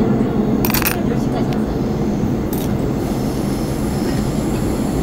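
Seoul Metro Line 4 subway train running, heard from inside the carriage as a steady low rumble. Over it come two short sharp clicks of small plastic miniatures being handled, about a second in and again about two and a half seconds in.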